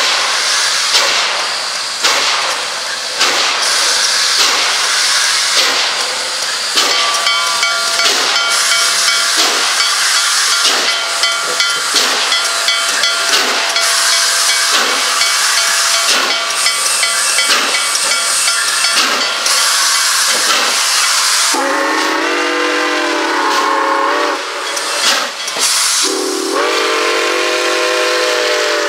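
Nickel Plate Road 765, a 2-8-4 Berkshire steam locomotive, chuffing steadily as it pulls its train, with steam hissing and a bell-like ringing through the middle. About 21 seconds in its chime whistle sounds, a long blast that bends in pitch, then a second blast near the end.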